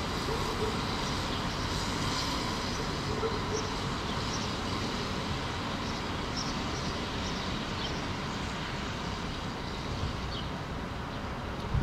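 Steady rumble of distant city traffic, an even background with no single vehicle standing out, and a few faint high chirps scattered through it.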